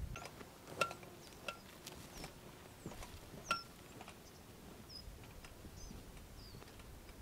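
Footsteps on stony ground at a walking pace, each with a light metallic clink from gear on a backpack, fading away after a few seconds. Short, high, falling bird chirps sound here and there.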